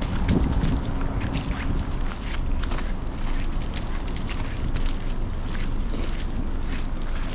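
Wind buffeting the microphone with a steady low rumble, over footsteps crunching through snow about two to three times a second.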